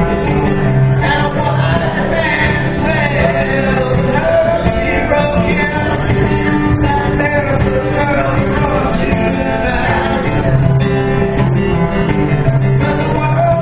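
A song performed live: a male voice singing over instrumental accompaniment.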